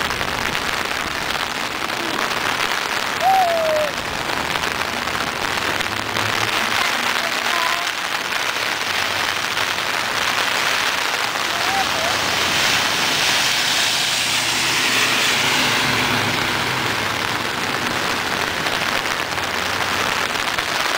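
Hurricane rain falling steadily on pavement, with a few short high vocal sounds from a small child.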